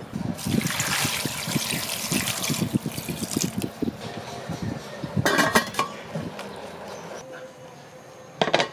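Water being poured into a stainless steel pot of quail eggs for about three seconds. A short clatter follows about five seconds in, and another knock comes near the end.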